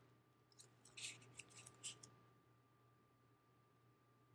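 Washi tape being pulled off its roll and snipped with scissors: a few short crackling rustles and snips, about one to two seconds in, then quiet.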